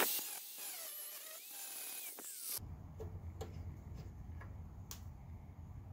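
Angle grinder with a cut-off wheel cutting across the brass threads of a drain-valve fitting clamped in a vise; its whine dips and rises as the wheel bites. The grinding stops abruptly about two and a half seconds in, leaving a low hum and a few faint clicks.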